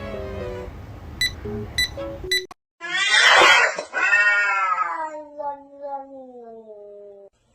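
A cat yowling: a loud short call, then a long drawn-out caterwaul that slides down in pitch and cuts off abruptly. Light plucked background music plays for the first couple of seconds before it.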